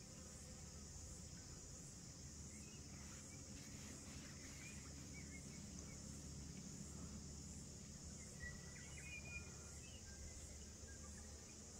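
Faint, steady high-pitched insect chorus from the bush, with a few short, faint bird chirps partway through and a low rumble of wind underneath.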